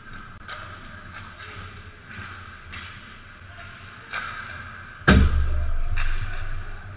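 Ice hockey play in an arena: skates scraping the ice in repeated short strokes, then about five seconds in a single loud bang, the loudest thing here, followed by a low rumble that dies away over a second or so.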